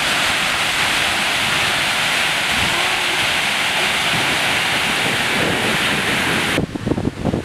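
A flash flood of muddy water laden with hail rushes past in a steady roar. Near the end the sound turns abruptly duller, with gusts of wind buffeting the microphone.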